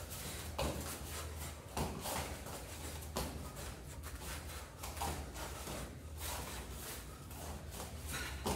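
Bare feet stepping and stamping on foam gym mats during shadow kickboxing, with a handful of sharper thuds at irregular intervals, over a steady low hum.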